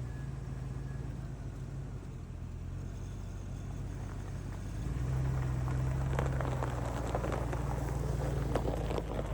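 Pickup truck driving, with a steady low engine and road hum. About five seconds in it gets louder, with rapid crackling and rattling over the hum.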